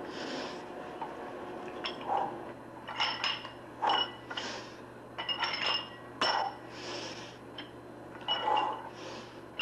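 Metal weights clinking in groups of two or three sharp, ringing clanks about every two and a half seconds, each group followed by a short hiss, as from a workout with free weights.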